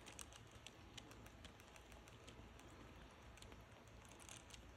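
Faint, irregular ticking and clicking from a gray squirrel drinking at the metal sipper tube of a water bottle, its mouth working the spout.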